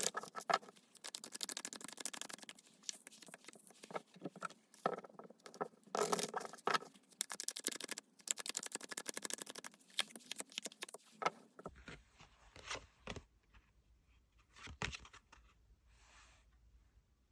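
Tarot cards being shuffled and handled: rapid, dense clicking and sliding of cards, thinning to sparser taps over the last few seconds with a low hum underneath.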